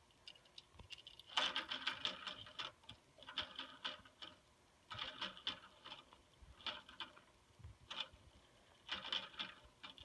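A LEGO model ceiling fan turning, its plastic parts clicking and rattling in irregular bursts of fast, light ticks, each burst about a second long or shorter.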